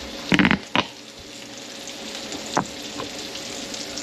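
Wahoo pieces frying in butter in a skillet, a steady sizzle, with a couple of clattering knocks in the first second and another single knock about two and a half seconds in.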